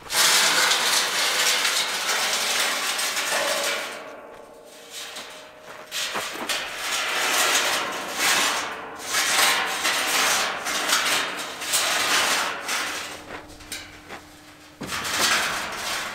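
Welded square steel-tube camper frame being dragged and tipped over on dirt, its metal tubing scraping and rattling against the ground. A long loud scrape in the first few seconds, then a series of rough surges as it is heaved along in pushes.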